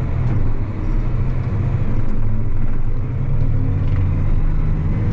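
Farm tractor's diesel engine running steadily while driving on the road, a low continuous drone with no change in pace.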